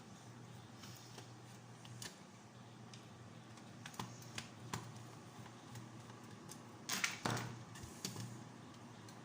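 Small plastic clicks and taps from the toy horse-race track's parts being handled, with a louder rattling clatter about seven seconds in, over a faint steady low hum.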